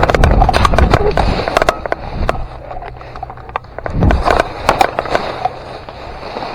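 Airsoft guns firing a string of irregular sharp snaps, over a rough rustling noise of movement through dry woodland brush.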